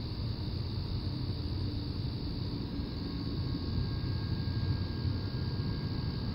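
Low, steady rumble of an approaching CSX freight train's diesel locomotive, still some way off.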